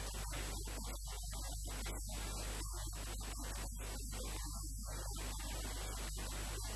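Steady electrical mains hum with a background hiss, and no clear voice.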